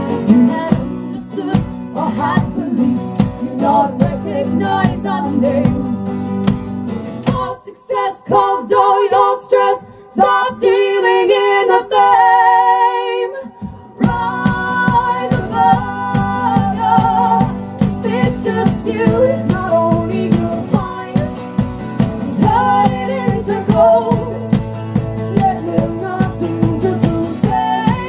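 Live folk-pop music: female voices singing in harmony over strummed acoustic guitar. About seven seconds in, the guitar drops out and leaves the voices holding sustained notes, and the strumming comes back in around halfway through.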